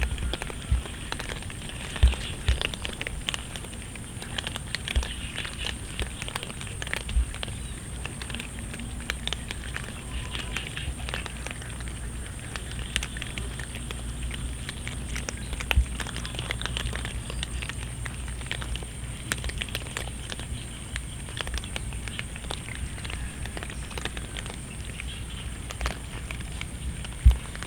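Cats eating, their chewing and crunching making a dense run of small crackling clicks over a steady hiss of rain, with a few louder thumps scattered through.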